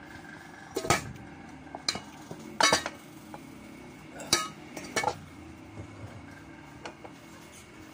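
Spoon and fork clinking against a plate while eating, several separate sharp clinks, the loudest about a third of the way in.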